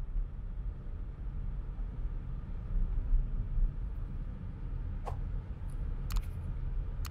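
Steady low road-and-engine rumble heard from inside a moving car, with three short sharp clicks in the last two seconds.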